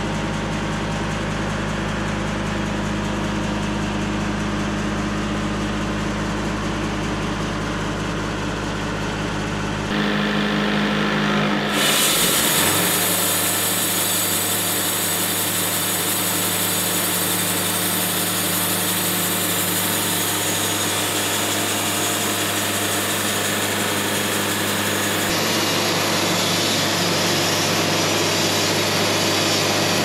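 Wood-Mizer bandsaw sawmill machinery running: a steady engine hum at idle for about ten seconds, then an abrupt change to a louder, hissier sound of sawmill machinery running and sawing, which changes character again about 25 seconds in.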